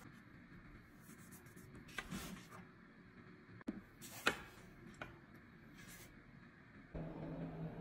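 Quiet kitchen handling noise: a few light taps and clicks as rounds of cookie dough are set on a metal baking sheet, the sharpest about four seconds in. Near the end a steady low hum starts suddenly.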